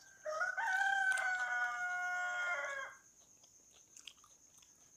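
A rooster crowing once: one long call of about two and a half seconds, held level and dropping in pitch at the end.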